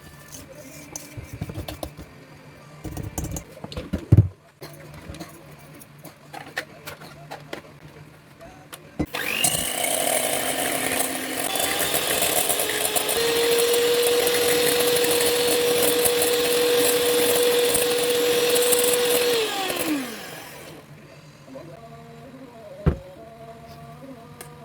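A small electric kitchen mixer runs for about ten seconds at a steady pitch, then winds down as it is switched off. Before it come light clatter and knocks of kitchen utensils, with one sharp knock.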